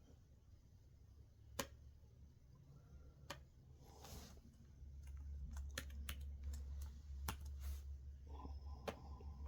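Quiet room with a low steady hum and scattered faint clicks and taps; the hum grows louder about halfway through.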